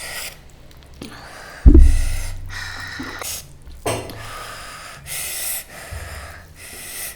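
A person's sharp, noisy breaths and gasps between mouthfuls of food, with one loud, low thump a little under two seconds in.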